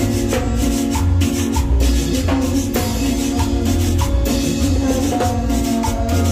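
Live band playing instrumental cumbia: a keyboard melody over a heavy bass line and percussion on a steady beat.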